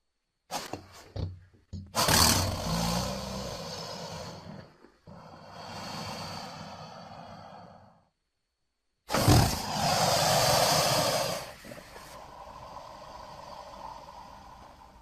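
Baryonyx dinosaur creature sound effects: a few short sounds, then a run of rough, drawn-out roaring vocalizations with silent gaps between them. The loudest one starts about nine seconds in and trails off into a quieter growl.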